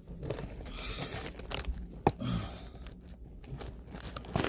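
Handling noise: rustling and crinkling with scattered clicks, and a sharp knock about two seconds in.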